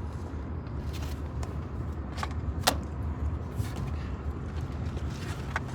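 Steady low rumble of a moving car heard from inside the cabin, with a few sharp clicks.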